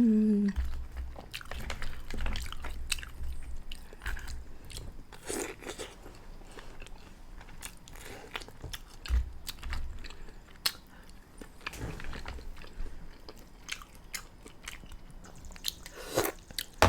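Close-up mouth sounds of a person eating mussels: wet chewing and lip-smacking with many scattered short clicks. A loud low vocal sound tails off about half a second in.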